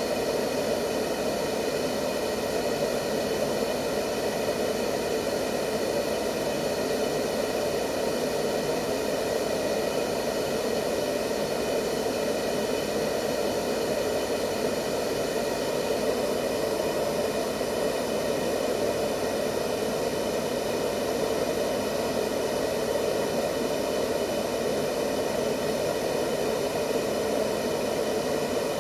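Steady, unchanging white noise for lulling a baby to sleep: an even rushing hiss, fullest in the lower middle, with faint steady whining tones above it.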